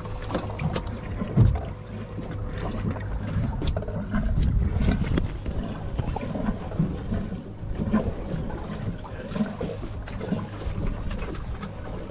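Sounds aboard a small fishing boat at sea: a steady rumble of wind and water against the hull, with scattered knocks and clicks of gear on deck.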